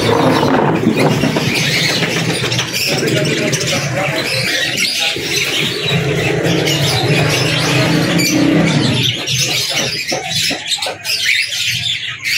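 Many caged pet birds (budgerigars, cockatiels and lovebirds) chirping and chattering together in a dense, high, continuous chatter. A low steady hum runs underneath and fades out about nine seconds in.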